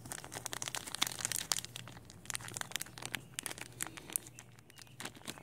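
Small clear plastic parts bag crinkling in the hands as it is handled, a dense run of crackles.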